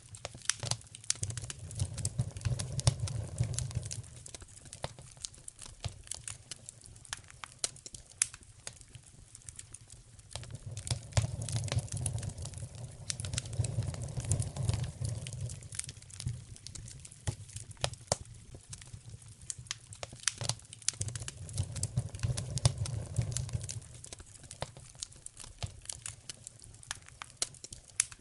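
Wood fire in a fireplace crackling, with frequent sharp pops and snaps, while a low rumble swells up and dies away three times.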